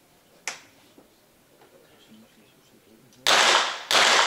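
Two shots from a .22 Short rapid-fire pistol near the end, a little over half a second apart, each sharp report ringing briefly: the opening shots of a five-shot rapid-fire series fired at five targets in a few seconds. A faint click comes about half a second in.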